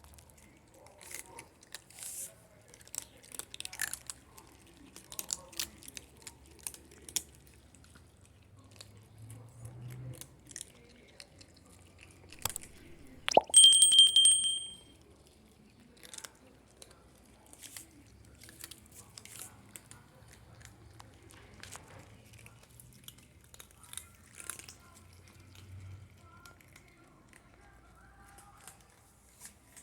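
Cats crunching and chewing dry kibble, irregular small crunches throughout. A little past the middle a loud, high, steady tone sounds for about a second and a half.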